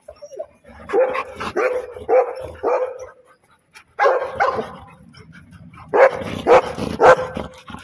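A young yellow Labrador barking: short, loud barks in three runs, about four in quick succession, then two, then three more after a pause.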